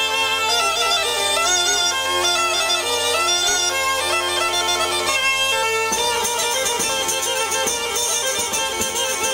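Traditional folk wind music playing over a steady low drone, which breaks off abruptly about six seconds in. In its place comes shrill fife piping with drumbeats from a marching folk band.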